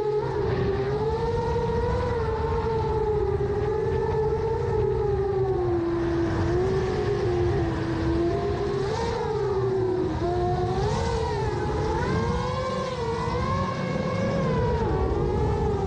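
7-inch FPV quadcopter's 2806 brushless motors whining in flight, the pitch wavering up and down as the throttle changes.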